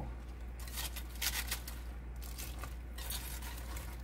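Chopped cabbage and green onion being tipped from a bowl and pushed by hand into a pan of liquid sauce: irregular crisp rustles and soft wet plops.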